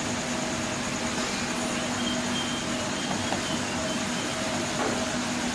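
Steady machine hum with a constant drone under an even wash of noise, unchanging throughout.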